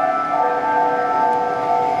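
Japanese level-crossing warning alarm ringing: an electronic bell tone alternating between two pitches in a quick, steady rhythm, the signal that a train is approaching.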